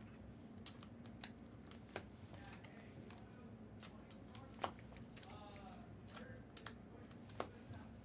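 Faint handling of trading cards: a handful of light, sharp clicks and soft slides scattered over a low room hum.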